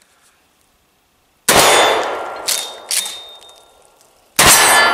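Pump-action shotgun with a duckbill choke firing twice, about three seconds apart: a round of #8 birdshot, then one of buckshot. Each blast echoes and fades, and the pump is racked back and forward between the shots with two sharp clacks.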